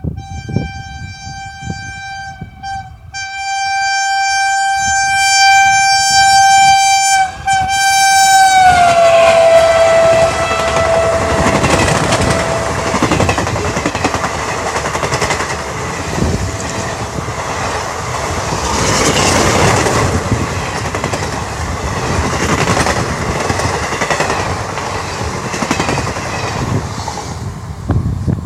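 WAP-1 electric locomotive's horn honking almost continuously, with a few short breaks, then dropping in pitch as the locomotive passes at about 110 km/h. The rushing and clatter of the express's coaches going by at speed follow, easing off near the end.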